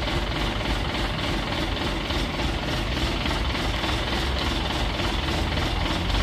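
Heavy diesel truck engine running steadily, with a faint regular pulse.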